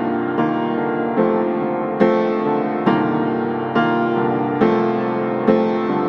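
Background music: a piano playing slow, gentle chords, a new chord struck a little under once a second.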